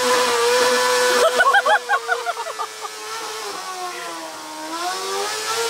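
Sport motorcycle with an Akrapovič aftermarket exhaust held at high revs during a burnout, its rear tyre spinning on the asphalt. About a second in, the revs flutter rapidly up and down in a string of short blips. The pitch then sags and climbs back near the end.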